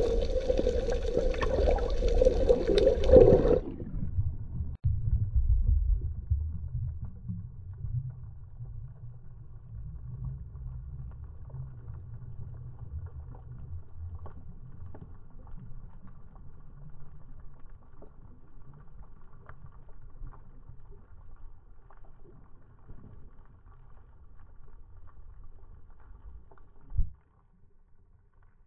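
Muffled underwater sound through a camera's waterproof housing: a loud steady hum with a buzz on top for the first few seconds, then a low rumble of moving water with faint scattered clicks, and a brief thump near the end.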